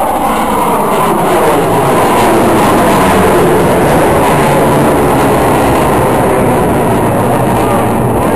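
CF-18 Hornet's twin jet engines at high power during a display manoeuvre: a loud, continuous jet roar that swells slightly over the first couple of seconds, then holds steady.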